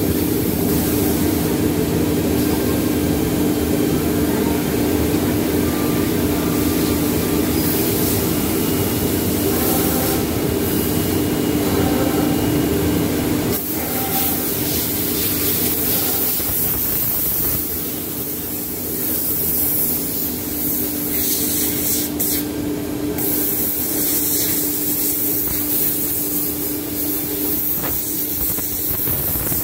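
Holztek PRO-R4F four-head CNC nesting machine running: a loud, steady machine drone with a steady tone over a broad hiss. The hiss thins somewhat about halfway through.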